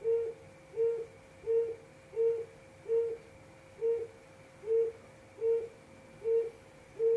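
Quail calling: a short, low hooting note repeated evenly about every three-quarters of a second, some ten times, over a faint steady hum.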